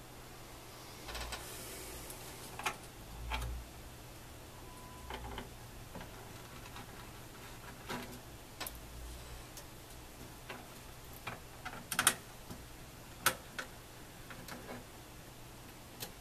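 Scattered small clicks and taps with some rustling and dull knocks, from a screwdriver and fingers working screws, plastic and metal parts inside an opened hot-air rework station. Two sharper clicks stand out in the last third.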